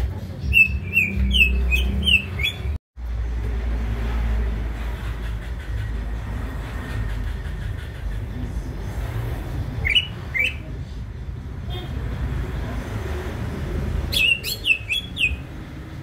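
Male greater green leafbird (cucak hijau) singing in quick bursts of short, clear chirping notes: a rapid run at the start, a pair of notes near the middle and another rapid run near the end. A steady low rumble runs underneath, and the sound drops out completely for a moment about three seconds in.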